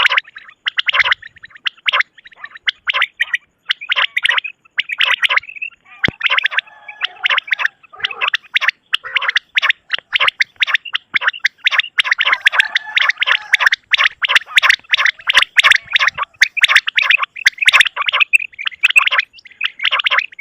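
Quails calling in fast runs of short repeated notes, many overlapping into a dense chatter, thinning briefly about six to eight seconds in.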